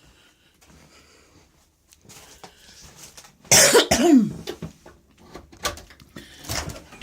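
A person coughing once, loudly and suddenly, about three and a half seconds in, amid scattered clicks and knocks of movement.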